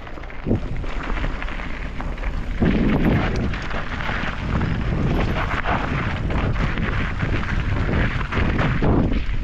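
Wind buffeting the microphone over the noise of a mountain bike's tyres rolling and rattling along a dirt trail, getting louder about two and a half seconds in.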